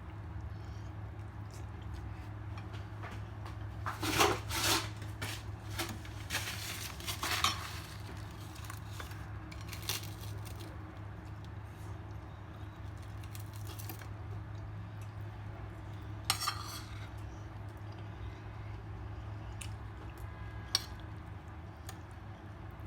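Plates and dishes clinking and scraping during a meal: a cluster of clinks about four to eight seconds in, then a few single clinks, over a steady low hum.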